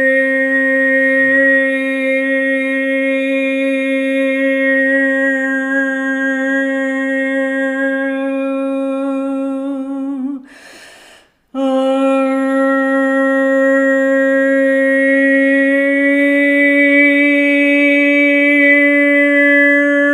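A woman's voice toning: a long sung tone held on one steady pitch, broken about ten seconds in by a short audible in-breath before the tone resumes.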